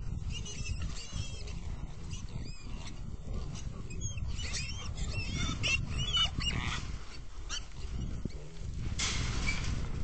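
Trapped wild hogs squealing and grunting, with high wavering squeals about half a second in and again around four to six seconds in, over low grunting. A short rush of noise comes near the end.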